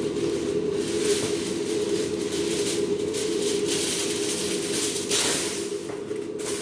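Clear plastic bag crinkling and rustling in repeated bursts as it is handled, over a steady low hum.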